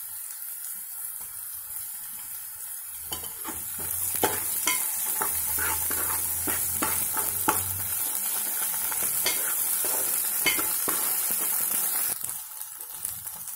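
Onions and ginger-garlic paste sizzling in hot oil in an aluminium pot. From about three seconds in until near the end, a steel spoon stirs and scrapes against the pot, with short scraping strokes over the sizzle.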